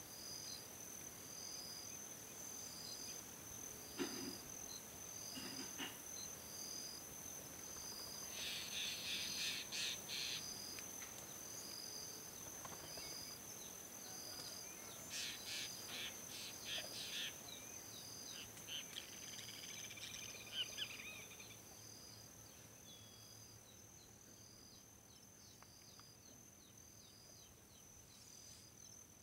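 Countryside insects singing: a steady high drone with a short chirp repeating about every second and a quarter. Birds call twice, about a third and about halfway through.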